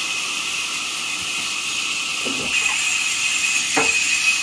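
Steady hiss with a thin high whine from sawmill machinery running, with a short sharp sound about four seconds in.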